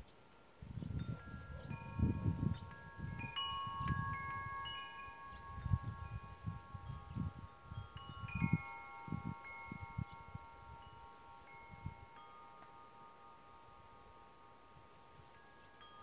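Wind chimes ringing: a cluster of clear, long-ringing notes struck over the first half, then left to ring out slowly.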